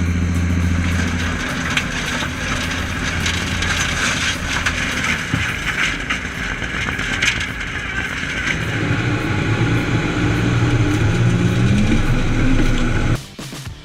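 Stump grinder running under load: a steady engine with a rough grinding noise as the cutter wheel chews through wood, the engine note rising near the end before the sound cuts off abruptly.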